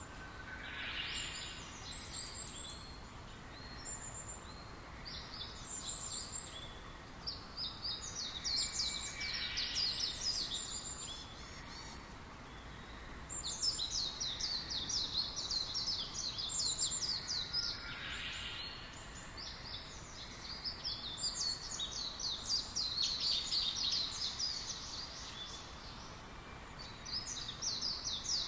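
Songbirds singing in the forest: phrases of fast, high chirping trills a few seconds long, repeated with short pauses, over a steady low background hiss.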